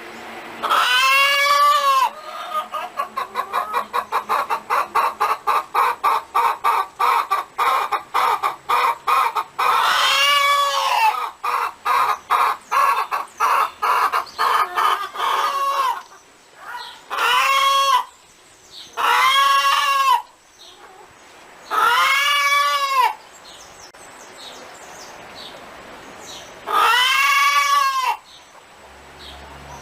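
Hen cackling: long runs of quick clucks, about four a second, broken by several drawn-out squawks that rise and fall in pitch.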